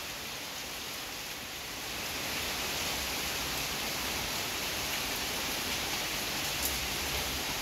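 Heavy rain falling steadily on tree leaves and a wet paved yard: an even hiss that swells a little about two seconds in.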